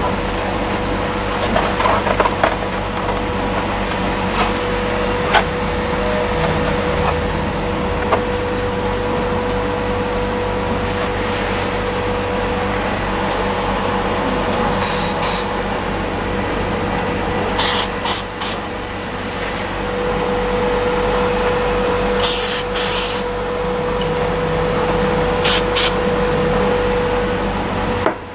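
Aerosol spray can hissing in several short squirts, single and in quick groups, from about halfway through, over a steady machine hum with a faint constant tone.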